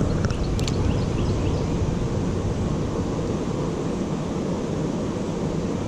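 Steady low rumble of wind buffeting the microphone outdoors, with a few faint short chirps in the first second.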